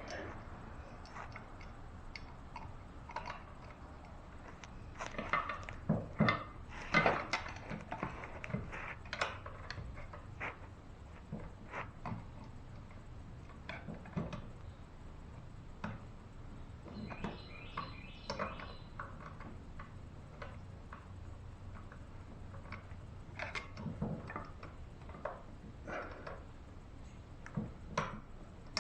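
Irregular metal clinks, taps and knocks of a screwdriver and parts against the outboard motor's lower unit as the shock mount bracket is worked into place, with a busier run of knocks a few seconds in.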